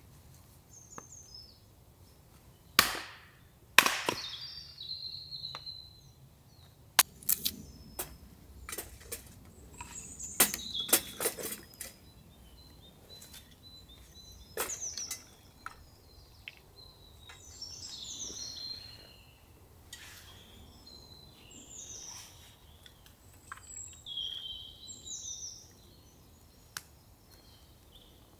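Wood being chopped and split into kindling at a chopping block: a couple of loud sharp knocks in the first few seconds, then a run of quick cracks and snaps. Small birds chirp high in the background, more often in the second half.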